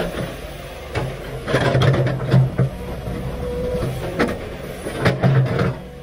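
Komatsu PC500LC excavator working under load: the diesel engine runs steadily with a faint whine over it, while the bucket digs into rocky earth with scrapes and several sharp knocks of stone against steel.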